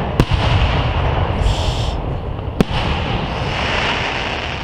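Aerial fireworks shells bursting at a display: two sharp bangs about two and a half seconds apart over a continuous low rumble of reports.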